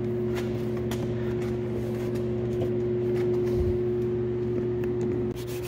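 A steady machine hum made of a few even tones, like a motor or fan running, which partly drops away shortly before the end. Faint light taps sound over it.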